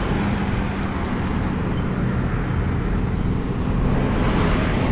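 Road traffic passing close by: a small truck's engine hum and tyre noise on the road, a steady rush that swells slightly near the end as more traffic comes past.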